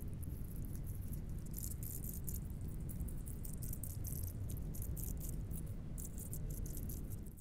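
Hand pump sprayer misting cleaning solution onto a stone headstone in short, irregular spurts of hiss, over a steady low rumble.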